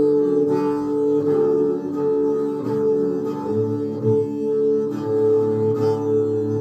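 Bowed long-necked string instrument with a skin-covered body playing a slow melody over a steady drone of two held tones.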